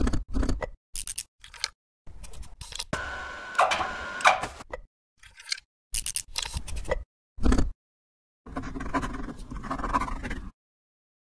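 Hand-tool work on an electric motor's terminal box: a screwdriver scraping, clicking and rattling against metal screws and the box, heard as a string of short snippets that each cut off abruptly into silence.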